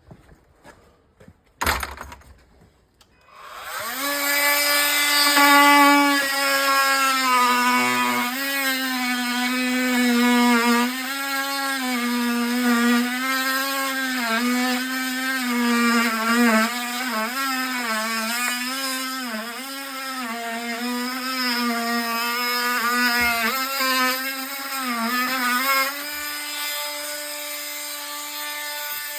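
Cordless power tool motor running steadily for over twenty seconds, starting a few seconds in after some light clicks, its pitch dipping and recovering about once a second as it works under varying load on timber. Near the end it runs more evenly.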